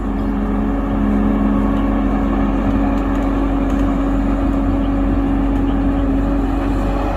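Excavator engine running steadily with a constant hum, and a steady tone held over it.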